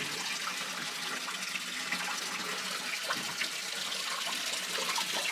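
Small waterfall in a mine tunnel, water splashing and running steadily, with a few faint ticks.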